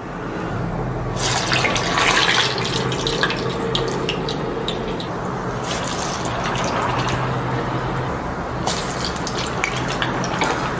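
Medu vada (urad dal batter) deep-frying in hot oil in a kadai: a steady, dense sizzle with crackling that starts about half a second in. The vigorous bubbling marks freshly dropped vadas whose first side is still cooking; it dies down once that side is done.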